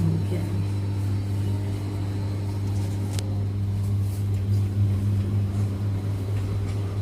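Siemens iQ700 washing machine running on test with a newly fitted second-hand drum: a steady low hum, with a single click about three seconds in.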